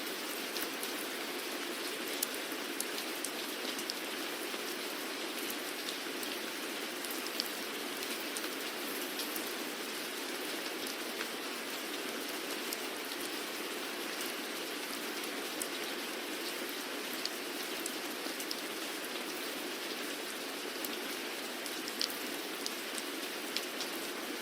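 Steady rain falling, with the close patter of individual drops landing on a surface scattered through it.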